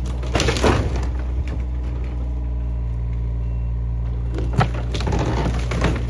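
Excavator engine running steadily while the old wooden barn's boards and timbers crack and snap as the machine pushes into it. The cracking comes in bursts near the start and again about two-thirds of the way through.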